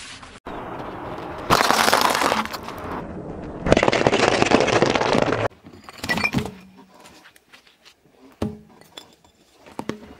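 Objects being crushed under a car tyre. Two loud stretches of dense crackling come first. Then sticks of sidewalk chalk crack and snap in scattered sharp breaks as the tyre rolls over them.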